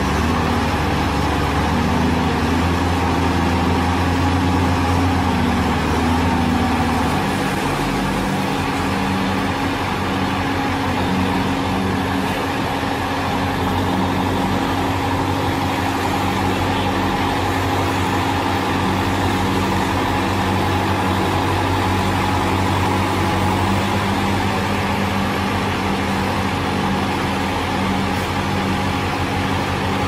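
Engines of a Blaw-Knox PF-161C asphalt paver and the dump truck feeding it running steadily. The low rumble eases about seven seconds in.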